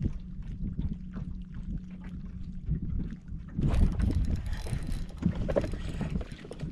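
Wind buffeting the microphone over water lapping at a small fishing boat, with a faint steady low hum. About three and a half seconds in it turns louder and hissier.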